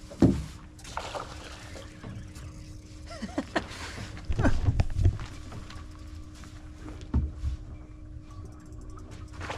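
Knocks and handling sounds aboard a fishing boat, with heavier low rumbles a little before halfway and again later, over a steady low hum.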